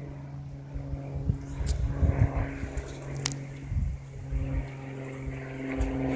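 Single-engine Cessna's piston engine and propeller passing overhead, a steady, even-pitched drone. Wind buffets the microphone in low, irregular thumps.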